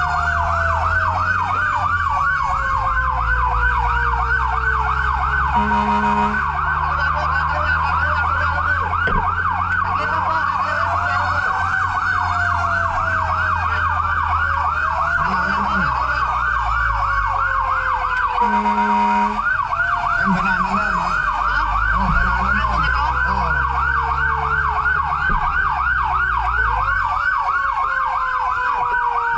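Fire truck sirens: one siren warbling in a fast yelp while a second slowly falls in pitch and starts over again and again, with the truck's engine running underneath. Two short horn blasts cut in.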